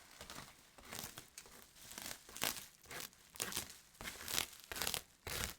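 Bubble wrap and plastic packaging being handled and pulled open by hand: irregular crinkling and rustling in short bursts, growing louder about two seconds in.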